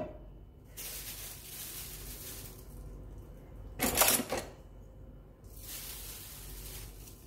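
Water pouring into a plastic cup in two spells of steady hiss, with a short clatter between them about four seconds in.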